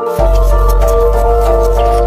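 Background music of calm, held melodic notes, joined shortly after the start by a loud, steady deep drone.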